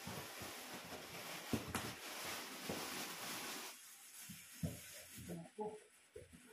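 Packaging rustling and crinkling inside a cardboard box for the first four seconds or so, with a few sharp crackles, then quieter scattered knocks and bumps as the contents are handled.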